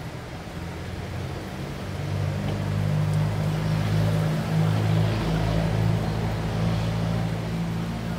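A motor vehicle engine running close by, a low steady note that grows louder about two seconds in.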